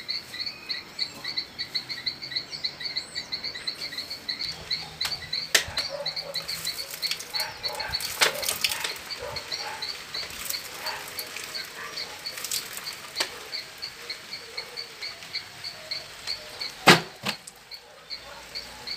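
Fast, even cricket-like chirping that runs on steadily, with scattered taps and knocks as the fittings of a plastic water tank are handled; the loudest knock comes near the end.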